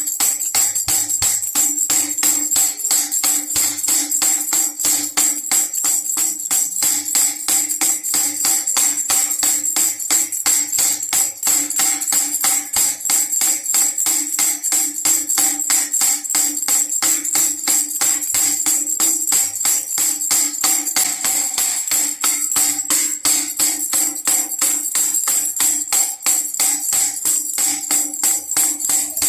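Baby rattle shaken continuously in a fast, even rhythm, jingling like a tambourine, over a steady low tone.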